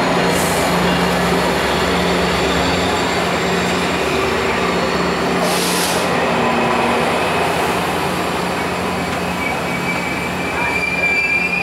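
VRE commuter train's stainless bilevel passenger cars rolling slowly past on the track as the train pulls in, with a steady low hum underneath. Two short hisses come about half a second and six seconds in, and a high, steady brake squeal starts near the end as it comes to a stop.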